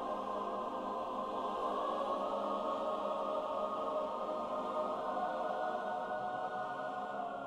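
Background film music of long held chords sung by a wordless choir, steady and without a beat.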